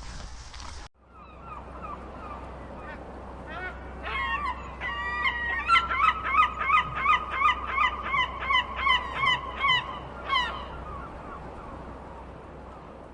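Birds calling in a rapid series of short, falling calls, about two or three a second, with more than one voice overlapping. The calls grow loud about four seconds in and stop shortly after the ten-second mark.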